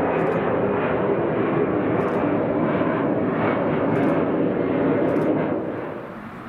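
Jet airliner's engines running loud and steady, then fading away about six seconds in as the aircraft passes.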